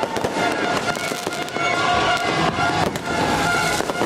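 Fireworks going off in a rapid, irregular string of bangs and crackles, with music playing underneath.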